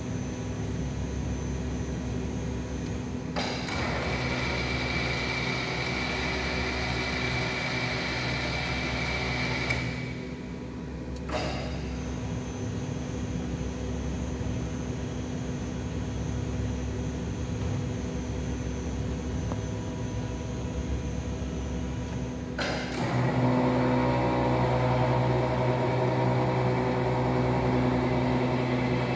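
A large helical-cutterhead planer running, with a steady motor hum. Twice a louder, rougher noise sets in for several seconds and stops abruptly.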